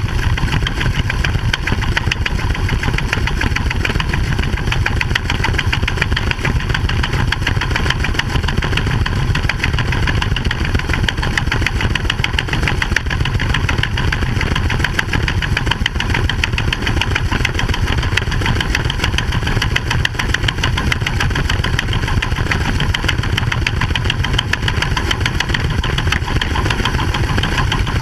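Steady mechanical running of the harvest machine's engine and grain unloading auger, a fast even pulsing drone, as shelled corn is augered out of the spout into a grain trailer.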